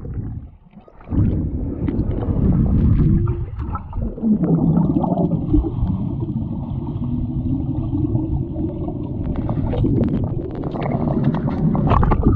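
Muffled underwater churning and bubbling in a swimming pool as a chocolate Labrador plunges in and paddles past the submerged camera. The water noise jumps up suddenly about a second in and stays loud.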